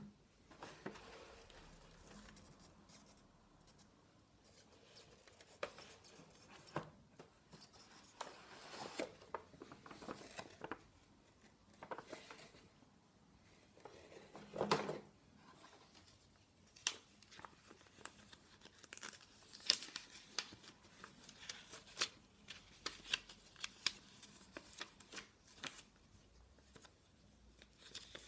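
Gloved hands handling a cardboard toy box and its paper contents: scattered quiet rustles, scrapes and light taps, with a soft thud at the very start and another about fifteen seconds in as the cardboard lid is moved.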